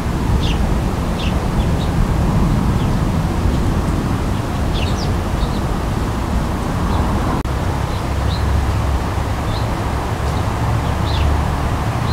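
A steady low rumble with short, high bird chirps scattered through it.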